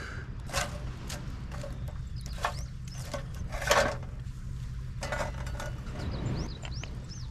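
Scattered light clicks and knocks of cooking gear and bottles being handled, with a few short high chirps about two seconds in and again near the end.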